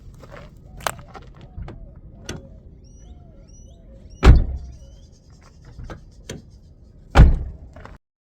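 Honda Civic door being shut twice: a heavy thud about four seconds in and another near the end, with lighter clicks of the latch and handle between.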